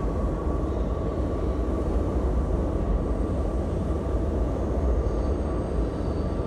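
Steady low rumble of a New York subway train running through the station, with a faint steady whine above it.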